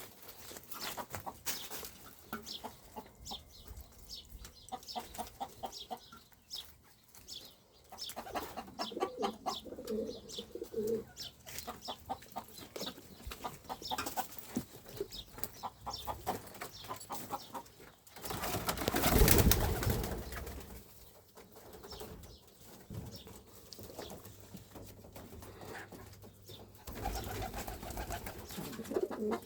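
Birds calling in low tones, with many small clicks throughout and one louder, noisy stretch lasting a couple of seconds about two thirds of the way through.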